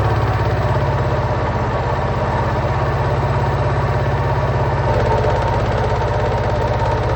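Bush WMSAE812EB washing machine spinning, its motor and drum running with a fast, steady pulsing vibration. The tone shifts about five seconds in.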